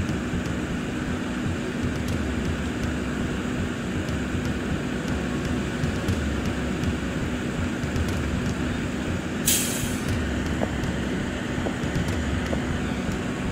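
Steady rumble of highway traffic and idling vehicle engines, with one short sharp hiss about nine and a half seconds in.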